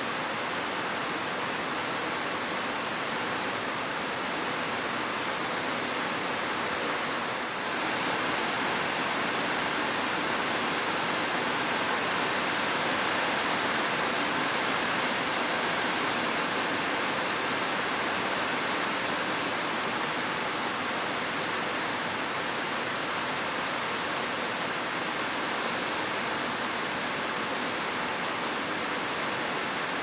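Heavy rain falling steadily, an even hiss of rainfall with a brief dip about seven seconds in.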